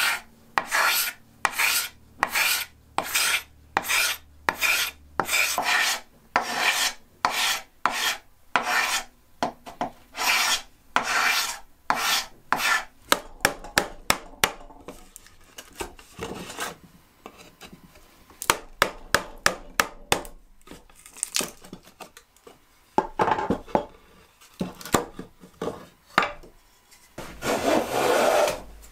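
Carbide-tipped hand scraper dragged in repeated strokes, about two a second, over an old bed-frame board, stripping the old finish. Later come quicker, shorter scraping strokes, and near the end a few longer hand-plane strokes along the board's edge.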